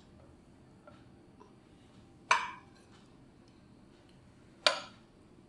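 A steel serving spoon clinking against a ceramic plate as food is served, two sharp taps a little over two seconds apart, each ringing briefly.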